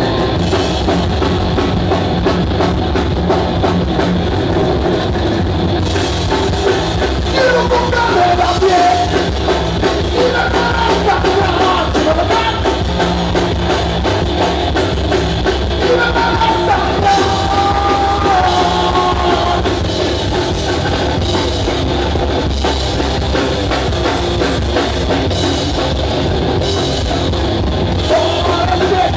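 Live rock band playing loud and without a break, a drum kit driving it, with a voice singing over the band at times.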